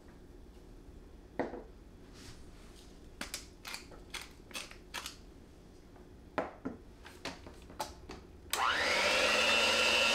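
Light clicks and knocks of kitchen utensils, then about eight and a half seconds in a small electric kitchen appliance motor starts with a rising whine and runs steadily, mixing the egg-and-cream quiche filling.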